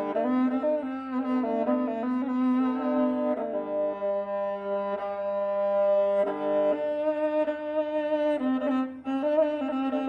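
A Kazakh kobyz, a two-string bowed horsehair fiddle, played solo. It carries a melody over a steady low drone, with a few seconds of long held notes in the middle.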